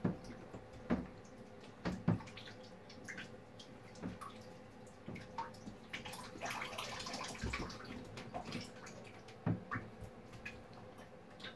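Water dripping and splashing in a filled bathtub as a young Java macaque climbs the rim and reaches into it, with scattered light knocks on the tub. A longer run of splashing comes about six seconds in.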